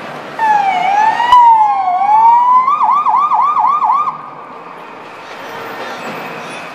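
Police SUV's electronic siren sounding briefly. A slow wail sweeps down and up twice, then switches to a fast yelp of about four cycles a second and cuts off suddenly, about four seconds after it starts.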